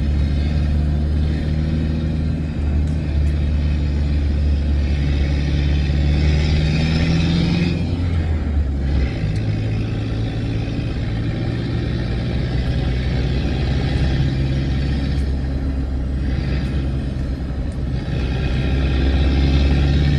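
Vehicle engine running steadily under way, heard from the moving vehicle, with road and wind noise. The engine note drops about eight to nine seconds in and climbs again near the end.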